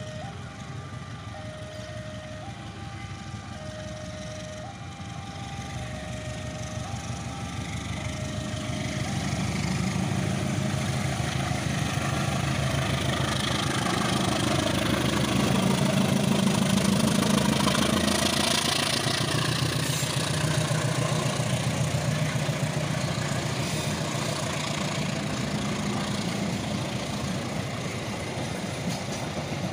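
KAI diesel-electric locomotive working hard under heavy load as it pulls a passenger train away up a rising grade, its engine growing louder as it approaches and passes, followed by the coaches rolling by. Over the first several seconds a level-crossing alarm sounds alternating two-tone chimes, about one a second, then fades under the engine.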